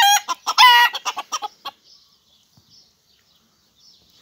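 Rooster clucking rapidly, with two loud, short, high calls in the first second. The clucking stops before the second second and it goes nearly quiet.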